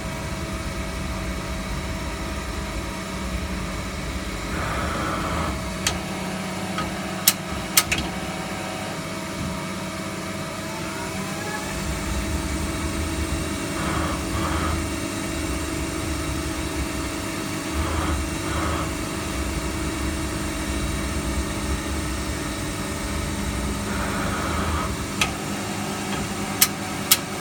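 CNC lathe running: a steady machine hum with several steady tones and a low rumble. Short hissy patches come every few seconds, and pairs of sharp clicks come about seven seconds in and again near the end.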